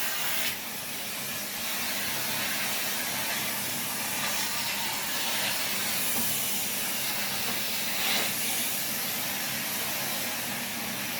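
Numatic Hetty 160 vacuum cleaner running at full suction, a steady rushing hiss of air drawn through the hose and attachment tool.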